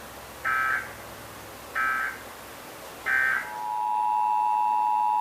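Emergency Alert System data tones: three short bursts of SAME warbling data signal, the end-of-message code that closes a test. About three and a half seconds in, the steady two-tone EAS attention signal (853 and 960 Hz) begins and holds.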